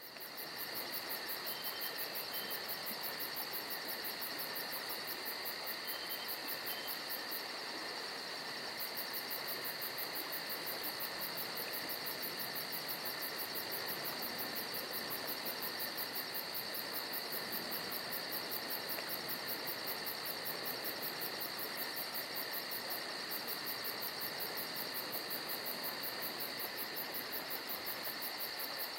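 Insect chorus of crickets or similar: a steady high trilling with a fast, even pulse, whose highest part drops out briefly twice.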